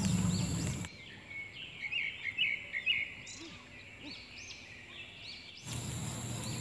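Small birds chirping in short repeated high notes over outdoor background noise. The background noise drops away abruptly about a second in and comes back near the end.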